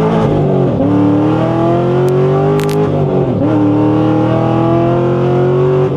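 C6 Corvette Grand Sport's cammed 6.2-litre LS3 V8 at full throttle, revving up hard through the gears of its manual gearbox. The note climbs, dips sharply at an upshift about half a second in, climbs again, dips at a second upshift about three seconds in, then climbs more slowly.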